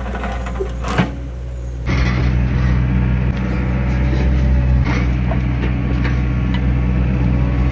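Excavator engine running steadily, getting louder about two seconds in, with a few short clanks over it.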